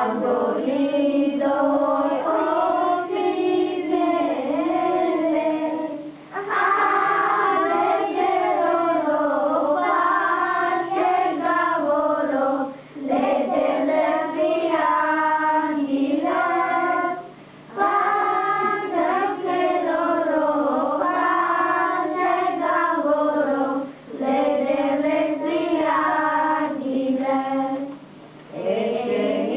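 A group of children singing a Romani kolinda (Christmas carol) from song sheets, without instruments, in sung phrases of several seconds with short breaks between them.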